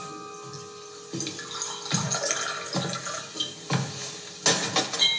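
Soft mallet-percussion music dies away, then a run of irregular water-like splashing noises comes roughly once a second.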